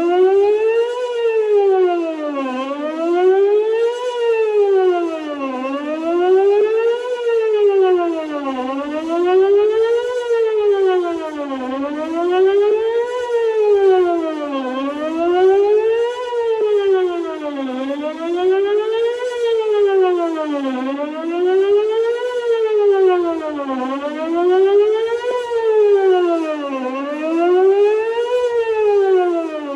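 Whelen WPS 2910 electronic outdoor warning siren sounding a test tone that rises and falls in pitch about every three seconds. It is loud and steady, running with what the uploader judges to be about 8 of its 10 speakers working.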